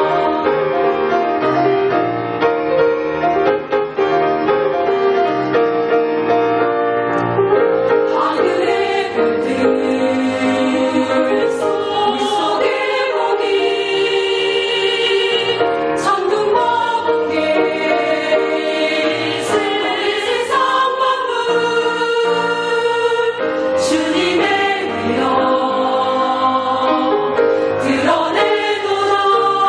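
A choir singing a Christian hymn in held, full chords, some voices wavering with vibrato.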